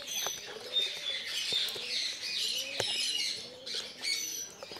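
Many small birds chirping and cheeping in high, quick calls, with soft, low, repeated cooing calls beneath them. A few sharp clicks come through as the cardboard box is cut open.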